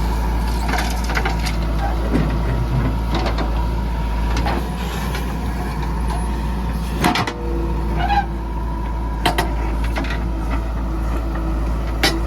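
Diesel engine of a JCB 3DX backhoe loader running steadily under work, with several sharp knocks now and then, the loudest about seven seconds in.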